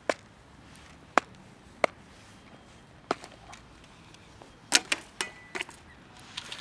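Scattered sharp clicks and taps from plastic food tubs and dry cat kibble, with a quick cluster of them about five seconds in.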